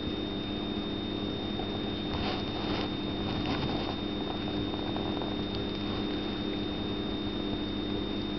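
Kitten grooming its fur, with brief soft rustling and licking about two to four seconds in. Under it runs a steady low hum and a thin high whine.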